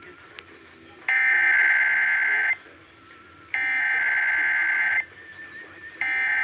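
Emergency Alert System SAME header on AM radio: bursts of buzzing digital data tones, each about a second and a half long and about a second apart, sent three times. The header marks the start of an emergency alert system test; the third burst starts near the end.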